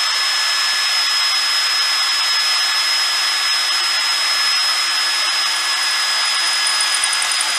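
Cordless drill running at a steady speed, its bit boring through the outer skin of a Nissan Navara NP300's windscreen pillar, with a steady whine.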